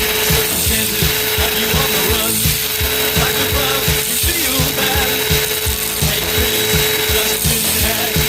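Cyclone-type vacuum cleaner running, its motor giving a steady whine over a rush of air.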